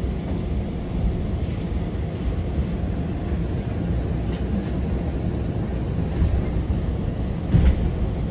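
Steady low rumble of a city bus in motion, heard from inside the cabin, with a short knock about seven and a half seconds in.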